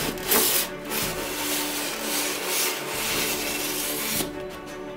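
Foam packing tray sliding and scraping out of a cardboard box, a rough rubbing that stops about four seconds in.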